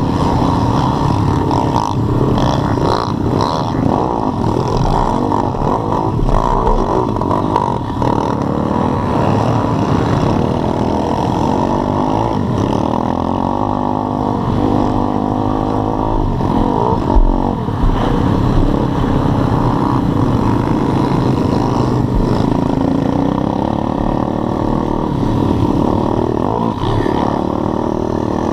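Pit bike's small single-cylinder engine running hard on a dirt track, its pitch rising and falling as it revs up and shifts through the gears. There is one sharp knock about two-thirds of the way through.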